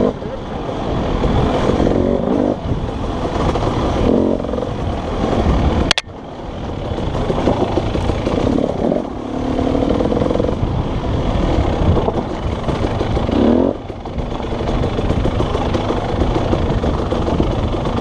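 Dirt bike engine revving up and down under changing throttle as it is ridden, its pitch rising and falling. A sudden break about six seconds in, and a quick climb in revs a little before the end.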